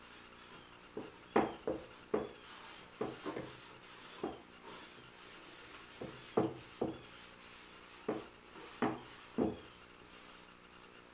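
Paper towel wiping shellac across the top of an Eastern red cedar box: about a dozen short, uneven rubbing strokes.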